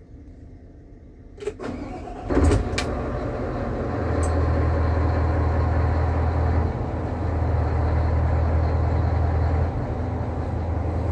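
Diesel engine of a Terex AC250-1 all-terrain crane started with the key: a click about a second and a half in, a short crank and catch at about two and a half seconds, then a steady low idle.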